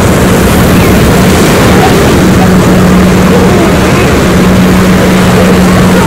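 Loud, steady rush of breaking surf and wind on the microphone, with a steady low engine-like drone under it and faint voices of people in the background.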